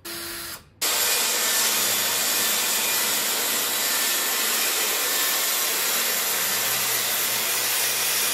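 A cordless drill whirs briefly, then from about a second in a circular saw cuts steadily through the plywood and timber of a platform bed frame.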